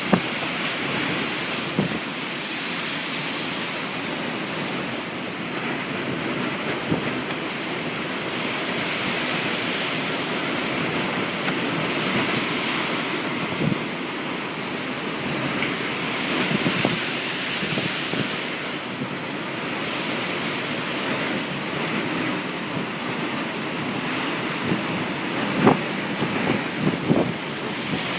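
Storm surf pounding the shore in blizzard winds, a steady rushing roar that swells and eases every few seconds, with wind buffeting the microphone. A few short sharp knocks come near the end.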